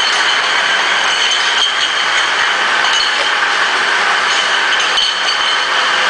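Steady clatter of many glass bottles clinking against one another as they ride a chain conveyor into a bottle-washing machine, with the conveyor and washer machinery running underneath.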